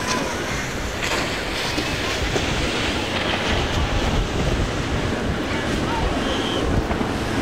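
Wind buffeting the microphone over the sound of water, with a steady low rumble from a large sportfishing yacht's engines as it cruises past.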